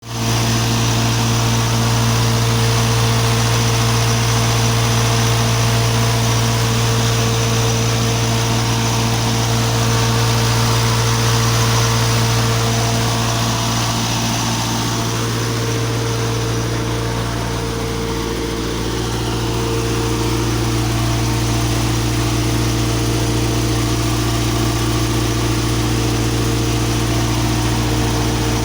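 15 kW Bedford GM diesel generator set running steadily, a constant engine hum; its note shifts slightly and dips a little in level about halfway through.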